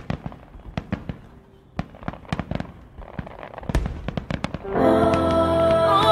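Fireworks going off: a string of sharp, separate cracks and bangs at irregular spacing. Near the end, music with held chords comes in over them.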